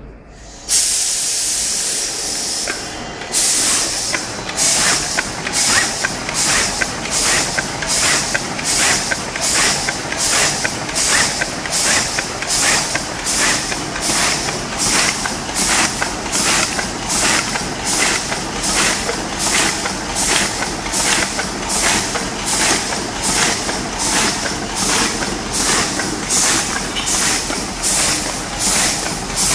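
Automatic packaging machine running, with a short burst of compressed-air hiss about three times every two seconds as its pneumatics exhaust each cycle, over a steady mechanical running noise. It opens with an unbroken hiss of about two seconds before the regular cycling begins.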